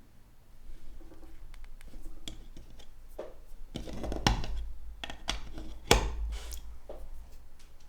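A phone and a USB charging cable being handled on a hard surface: a run of light clicks and scrapes, with two sharper knocks about four seconds in and near six seconds.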